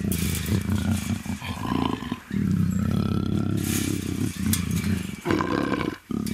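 Black leopard (female African leopard) in estrus making long, low moaning growls, an in-heat call, broken by short pauses about two seconds in and near the end.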